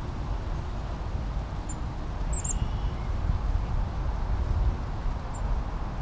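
Low, steady rumble of wind on the microphone, with a few faint, short high-pitched bird chirps, two close together about two seconds in and one near the end.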